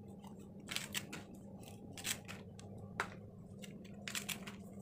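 A knife cutting through yardlong beans held in the hand: a few faint, crisp snips in small clusters.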